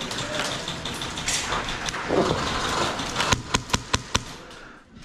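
Shuffling, rustling noise, then five sharp clicks in quick succession, about five a second, typical of an airsoft gun firing single shots.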